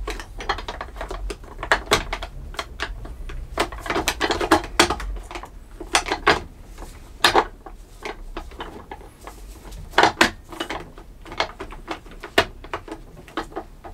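Ribbed plastic cover of an office-chair gas-lift cylinder being worked by hand to fit it: irregular plastic clicks, rattles and knocks, a few of them louder.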